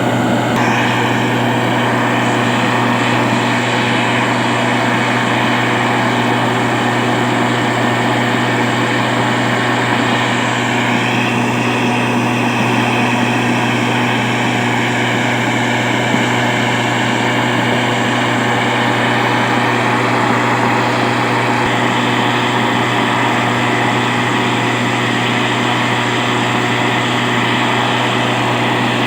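A small engine running steadily at a constant speed, with a strong low hum and a slight waver in its higher tones about a third of the way in.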